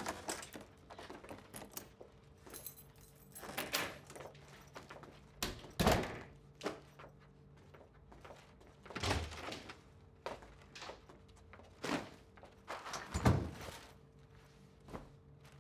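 Scattered handling sounds in a small room: a door, then shopping bags rustling and items being handled and set down. The sounds come as separate thunks, clicks and rustles with quiet gaps between them.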